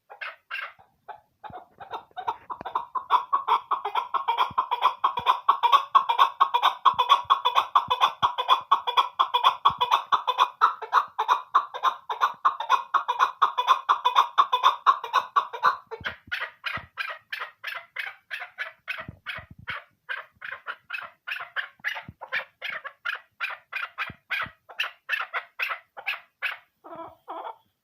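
Female chukar partridge (chakor) calling: a long run of rapid, repeated clucking notes. About halfway through, the notes turn higher and more separate, at about four a second.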